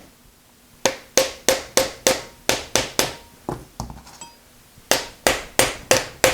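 Repeated hammer blows on metal, about three a second with a short ringing note each, driving a tight pulley along the lathe's shaft. There is a brief pause midway, then another quick run of blows.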